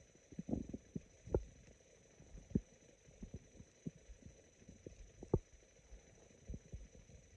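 Human stomach gurgling sparsely: brief low pops and squelches scattered a second or more apart, the strongest a little over a second in, about two and a half seconds in and about five seconds in.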